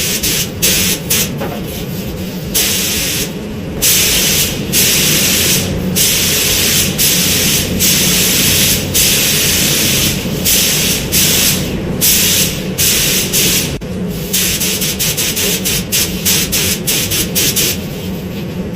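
Compressed-air paint spray gun hissing in repeated bursts as the trigger is pulled and released, laying a black mist coat over grey primer; long passes in the middle and quick short bursts near the end. A steady low hum runs underneath.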